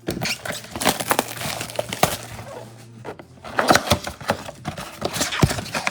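Packaging crinkling and crackling as a box of 2024 Select football trading cards is torn open and the cards handled, in a dense run of sharp clicks and crackles.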